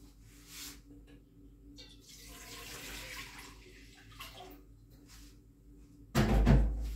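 Kitchen tap running into the sink for about two seconds, with water splashing. Near the end comes one loud, short clunk.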